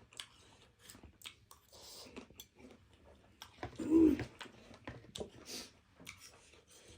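People chewing and eating spicy instant noodles, with scattered soft clicks and wet mouth sounds. There is a brief, louder voiced sound about four seconds in.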